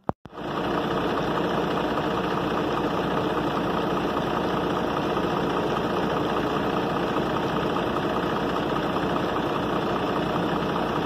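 Truck diesel engine running steadily at idle while its exhaust pours out thick white smoke, a fault the owner puts down to either the turbocharger or turned piston rings.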